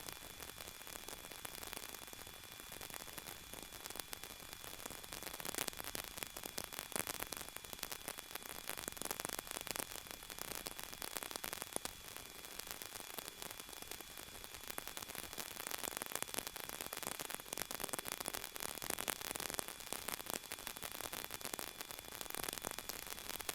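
Steady static hiss on a helicopter's intercom audio line, with two faint steady high-pitched tones under it.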